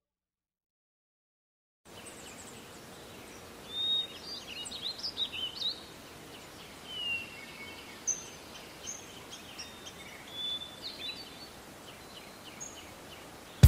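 Birds chirping and calling in short whistled notes over a steady outdoor background hiss, after about two seconds of silence.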